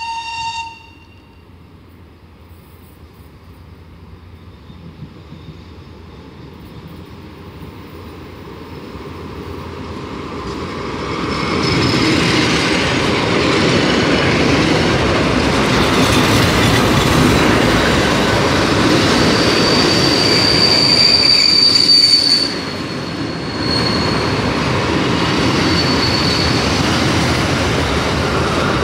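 A short horn blast from a D1 diesel multiple unit, then the train's rumble growing steadily as it approaches and runs past, its wheels clattering over the rails. A high wheel squeal rings out for a few seconds about twenty seconds in and returns more faintly.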